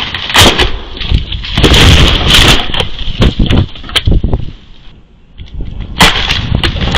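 Storm in snow-laden woods: rushing wind with sharp cracks of branches snapping, as a snow-loaded tree breaks and falls. The loudest rush comes about two seconds in, and another sharp crack near the end.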